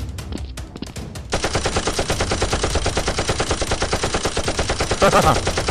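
Rapid automatic gunfire starts about a second and a half in and runs as a fast, even stream of shots, after a stretch of background music. A short shout cuts in near the end.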